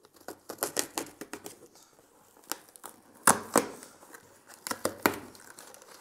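A small taped cardboard shipping box being torn open by hand: a series of sharp ripping and crinkling sounds of tape and cardboard flaps. The loudest two rips come about three seconds in.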